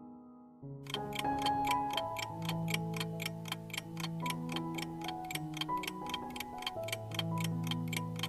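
Clock-ticking sound effect for a countdown timer, fast and even at about four ticks a second, marking the last seconds of the time limit. It starts about a second in and plays over background music with held notes.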